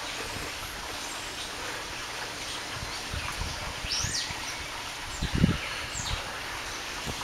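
Two Doberman dogs, a puppy and an adult, play-wrestling on grass: scuffling and rustling, with a few low thuds about five seconds in. There are a couple of short high chirps in the middle.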